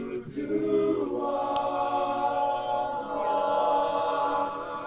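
An a cappella vocal group sings long, wordless chords in close harmony, shifting to a new chord a few times.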